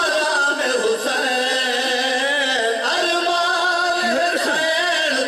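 Men singing a noha, the Shia lament, together into microphones, in long held, wavering notes and amplified through a sound system.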